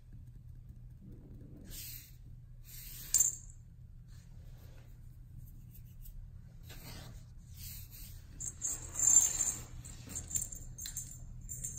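A small jingle bell in a cat toy rattling in short scattered bursts, with a sharp tap about three seconds in and the loudest, longest jingling about nine seconds in, over a steady low hum.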